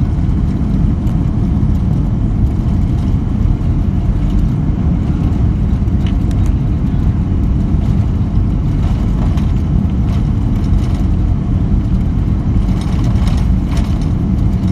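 Steady low rumble inside the cabin of a Boeing 787 Dreamliner rolling along the ground: its engines and wheels on the tarmac, heard through the fuselage.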